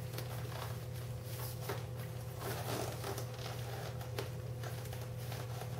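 Soft rustling and small handling noises of an apron's waist ties being wrapped around and tied off, over a steady low hum.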